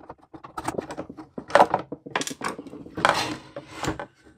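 Clicking and clattering of hand tools and parts on a workbench: a Torx screwdriver and a small screw set down and a plastic corner lens worked loose from a Jeep Grand Cherokee header panel, with louder clatters about one and a half, two and three seconds in.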